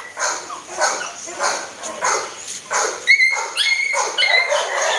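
Caged kennel dogs barking and yipping repeatedly in quick succession, with a few high, thin yelps about three seconds in.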